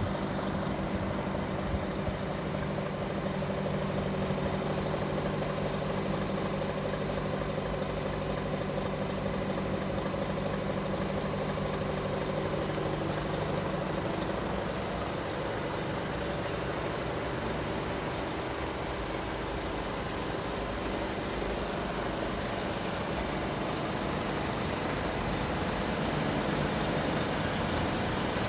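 Mercedes-Benz Actros 1843 tractor unit's 12.8-litre straight-six diesel idling steadily, with a constant high-pitched whine over it.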